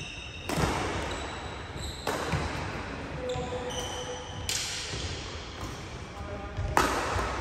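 Badminton rackets hitting the shuttlecock back and forth in a rally, four sharp hits about one and a half to two and a half seconds apart, each echoing around a large hall.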